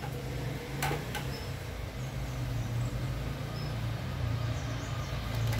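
A steady low background hum, with two light clicks about a second in and another near the end, as small metal parts and a pump oil can are handled over an aluminium crankcase.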